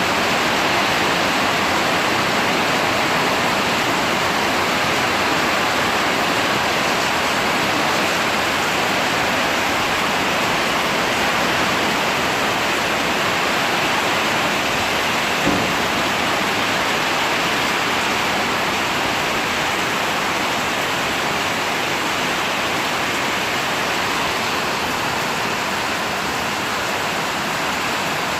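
Heavy rain pouring steadily in strong wind, a continuous even hiss, with one brief knock about halfway through.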